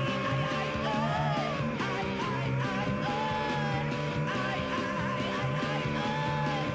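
Background rock music with a steady beat and long held notes above it.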